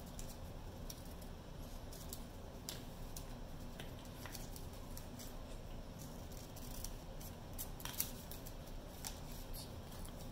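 A run of light, irregular clicks from small metal implements, with one sharper click about eight seconds in.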